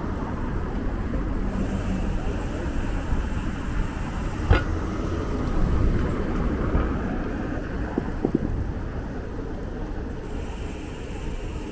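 City street traffic noise, a steady low rumble, with one sharp knock about four and a half seconds in and a few lighter knocks later.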